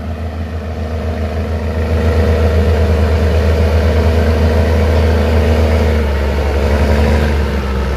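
Scania truck's diesel engine running under load as the heavy rig creeps around a tight bend. It is a steady deep rumble that builds over the first couple of seconds and eases a little near the end.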